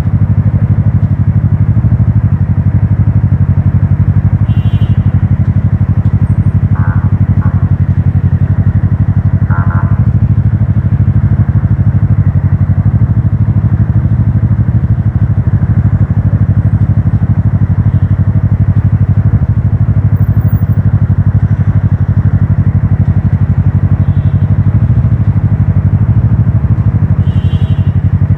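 Motorcycle engine and wind noise while riding along at a steady pace, a loud, even low drone. A few brief higher-pitched tones cut in about five seconds in, around seven and ten seconds, and again near the end.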